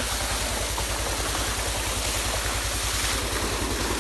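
A tubewell's outlet pipe pouring a heavy stream of water into a brick tank, with a steady rush and splash. Under it is a low, even, fast chugging of the pump's engine.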